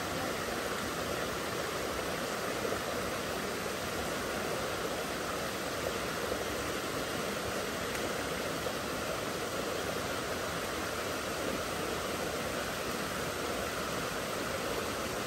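Running water, a steady rush with no change in level.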